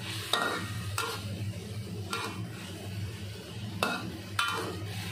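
Metal ladle scraping and knocking against an aluminium wok while stirring chicken in a thick soy-sauce gravy: about five short clanks, some with a brief metallic ring, over a steady low hum.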